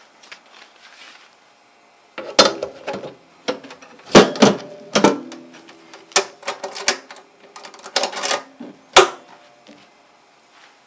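Stainless-steel sheet-metal parts of a Naturehike pellet stove clanking as a top plate is set onto the hopper box: a run of sharp metallic knocks and rattles, some with a short ring. The loudest knock comes about four seconds in, and a last single knock comes about nine seconds in.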